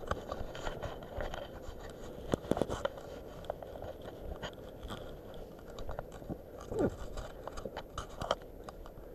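Footsteps crunching and scraping on a rocky dirt trail, with irregular clicks and the rustle of clothing and gear as people walk.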